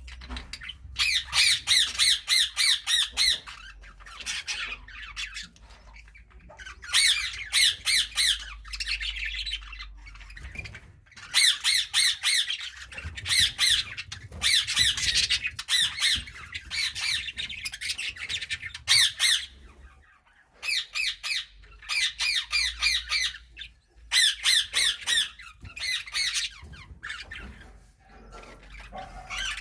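Budgerigars chirping in quick runs of sharp, high chirps. The calls come in bouts of a second or more, broken by short pauses.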